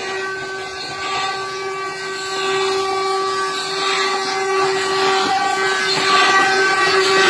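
Traditional Brazilian ox cart (carro de boi) singing: its solid wooden wheels and axle turning against the wooden bearing blocks make a steady, whistle-like drone with overtones over the rumble of the rolling cart, growing louder near the end.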